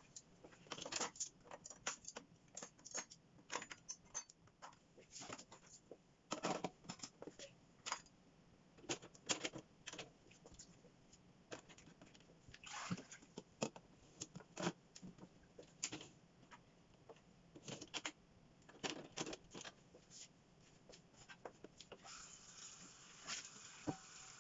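Plates and plastic containers clinking and clattering against a dishwasher's wire racks as they are loaded, a run of irregular light knocks with short pauses between them. A soft hiss comes in near the end.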